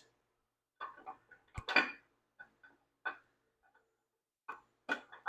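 Camshaft being slid out of a Ford 460 V8 engine block: a string of irregular light metal clinks and taps, with one louder knock about a second and a half in.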